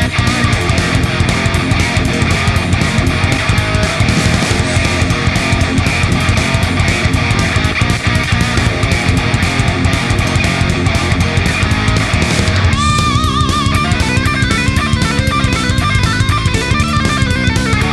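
Loud heavy rock music with distorted electric guitar and a fast, steady drum beat; the arrangement changes about two-thirds of the way through.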